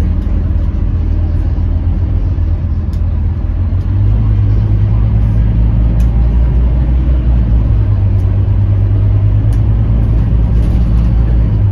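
Scania K310UB city bus's five-cylinder diesel engine running under way, heard from inside the passenger cabin as a steady low drone with road noise, growing a little stronger about four seconds in. A few light clicks and rattles sound over it.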